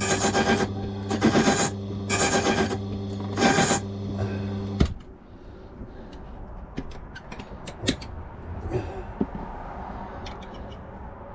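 Key-cutting machine running with a steady hum while the blade of a safe lever key is stroked lightly against the cutter, giving four rasping passes about a second apart. The machine is switched off with a click about five seconds in, followed by light clicks of handling.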